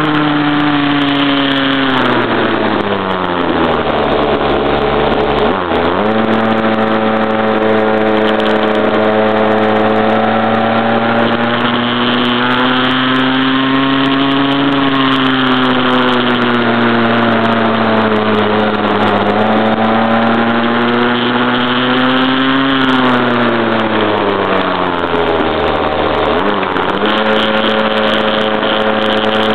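Stock CAG pocket bike's small two-stroke engine running under throttle on the move, with the engine note rising and sagging as the throttle is worked. Twice, about two seconds in and again about three quarters of the way through, the revs fall away for a few seconds and then pick straight back up.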